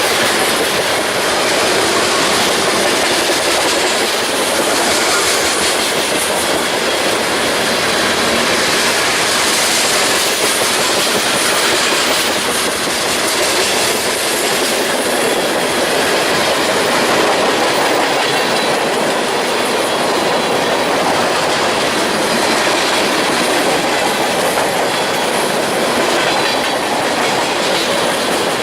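A train's cars rolling past close by in a steady, unbroken run of wheel-on-rail noise.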